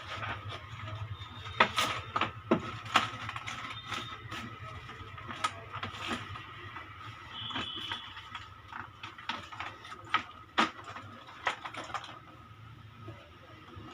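Irregular clicks and knocks of a computer keyboard's plastic case and parts being handled and reassembled, over a steady faint hum.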